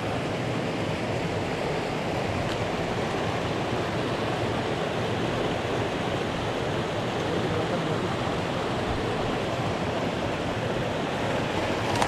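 Rushing water of a mountain stream running over rocks, a steady even noise.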